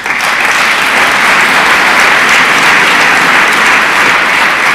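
Audience applauding, loud and steady.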